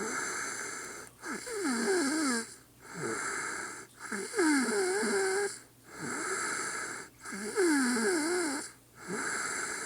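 A woman snoring: about three breaths, each a rasping inhale followed by a whistling exhale whose pitch falls and wobbles.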